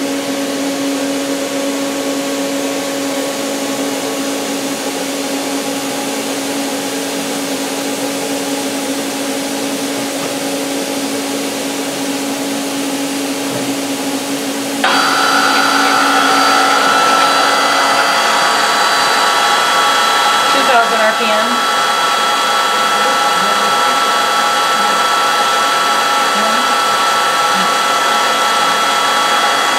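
DMG Mori Sprint 42/8 CNC Swiss lathe running with a steady hum. About halfway through, a louder, higher whine of several steady tones starts and holds: a live tool spindle spinning up and running at speed.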